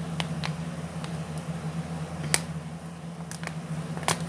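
A steady low hum, like a fan running, with a few sharp light clicks from small toy pieces being handled; the loudest click comes about two and a half seconds in and another near the end.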